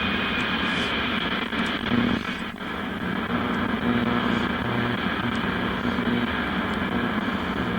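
1972 Oldsmobile Cutlass Supreme AM-FM radio tuned to the AM band, giving out steady static hiss with a low hum through its speaker, coming on suddenly.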